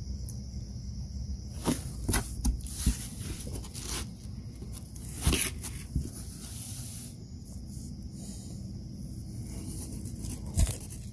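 Rustling scrapes and a few knocks as a cardboard pizza box is handled and slices are pulled apart, loudest between about two and seven seconds in. A steady chirring of night insects runs underneath.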